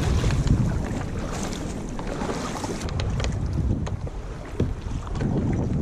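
Wind buffeting the microphone on a kayak at sea, with water sloshing around the hull and a few small knocks around the middle.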